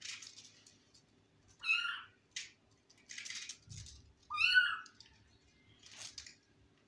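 Ginger kitten meowing twice, two short high calls a little under three seconds apart, the second louder. Brief rustling noises come in between.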